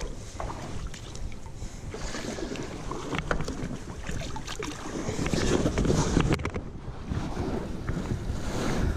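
Shallow river water splashing and sloshing around feet and an inflatable kayak as someone climbs aboard, with scattered knocks and rustles of handling. Wind buffets the microphone throughout.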